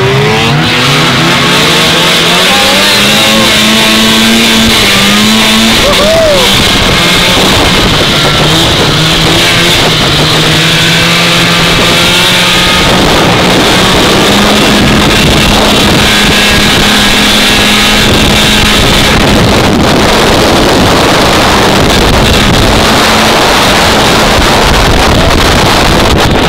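Vintage two-stroke snowmobile engine running at speed. Its pitch climbs as it accelerates at the start, then holds fairly steady, under a heavy rush of noise.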